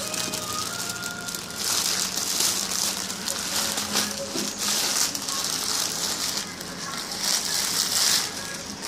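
Clear plastic packaging crinkling and rustling in irregular bursts as it is handled and pulled off a travel cajon.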